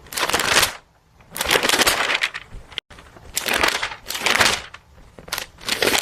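Crunching sound effect in four bursts of rough noise, each lasting about half a second to a second and a half, with an abrupt cut near the middle.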